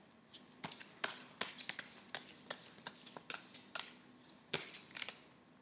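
A deck of oracle cards being shuffled by hand: an irregular run of short, crisp card clicks and slaps, several a second.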